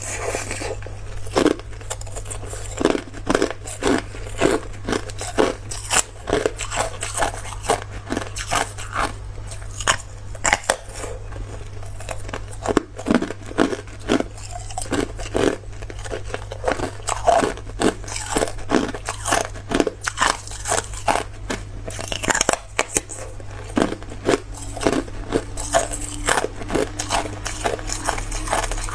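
Person biting and chewing hard clear ice: a continuous run of sharp crunches and cracks, one or two a second, over a steady low hum.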